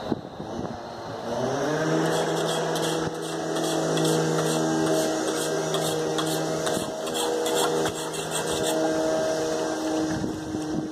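An engine speeds up about a second in, then runs steadily at one speed with an even hum and drops off near the end.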